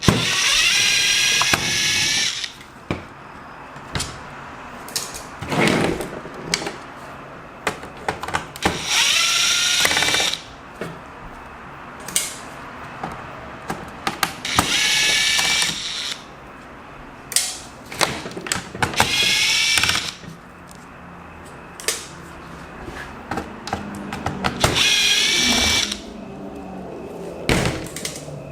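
Electric screwdriver backing out laptop case screws in five separate whirring runs of a second or two each, its whine rising as it spins up. Small clicks and taps come between the runs.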